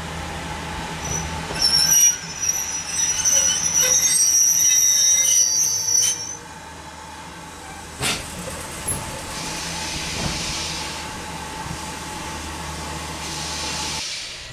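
A train of steel-wheeled passenger coaches rolling slowly past over a steady low rumble. About a second and a half in, a shrill, high squeal of wheels on the rail starts and holds for some five seconds, then dies away. A single sharp click follows a couple of seconds later as the coaches roll on.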